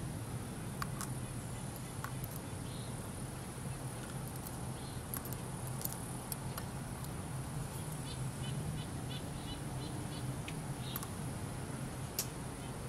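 Steady background noise: a low hum and a high hiss, with a short run of quick high chirps, about four a second, a little past the middle. A few sharp light clicks are scattered through it.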